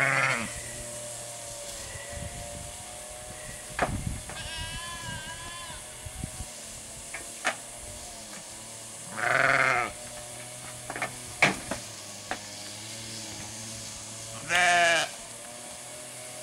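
Barbado–Dall cross sheep bleating: three loud calls of about half a second to a second each, one at the start, one about halfway and one near the end, with a quieter, wavering higher bleat about four seconds in. A few short sharp knocks fall between the calls.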